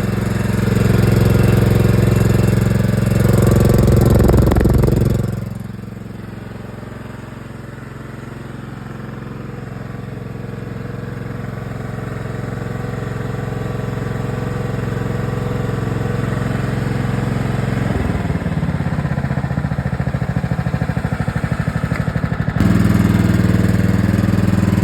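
Riding lawn mower's 14-horsepower engine running steadily. It is loud for the first few seconds, drops suddenly to a lower, quieter running about five seconds in, slowly builds again, and steps back up near the end.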